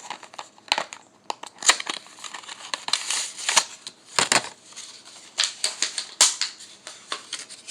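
Cosmetic packaging being handled by hand: an irregular run of sharp plastic clicks and short crinkling, rustling bursts.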